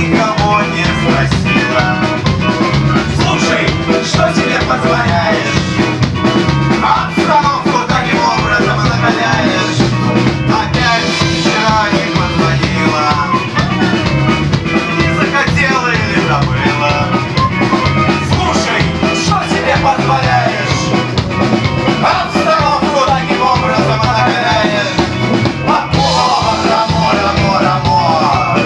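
Live rock band playing a song: a man singing lead over electric guitar and a drum kit.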